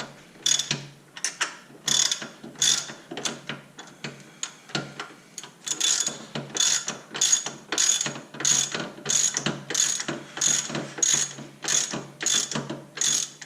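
Hand ratchet wrench clicking in repeated back-and-forth strokes, about one and a half a second, as a nut or bolt on the car's front shock mounting is backed off.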